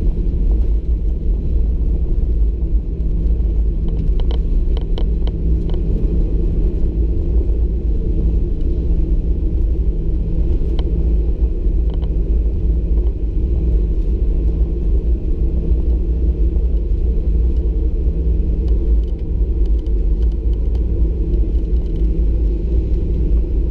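Steady, loud low rumble inside the cabin of a Boeing 737-800 rolling out on the runway after touchdown, with its spoilers raised: CFM56 engine noise and the landing gear rolling on the tarmac. A few faint rattling clicks come about four to six seconds in.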